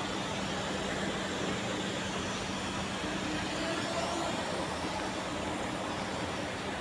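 An engine running steadily, with a constant low hum under rough noise.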